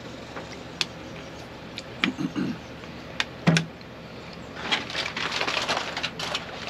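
A few sharp clicks and a knock from a plastic water bottle being handled and set down on a wooden picnic table, then aluminium foil crinkling and rustling steadily as it is unwrapped, from a little past halfway.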